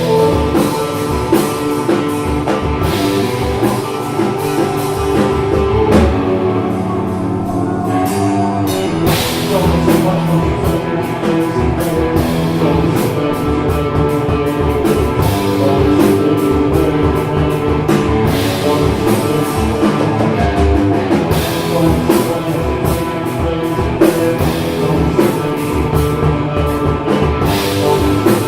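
Rock band playing a song live: sustained guitar chords over bass and a drum kit with steady drum and cymbal hits.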